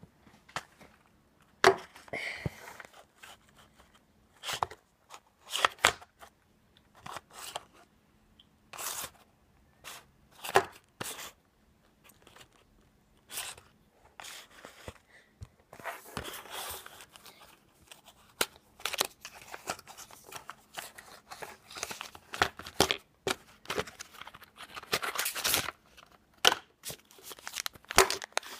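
Small cardboard box of a Tomica die-cast toy car being opened and handled. The sound is irregular sharp clicks and short spells of tearing and rustling cardboard with quiet gaps between, busier in the second half.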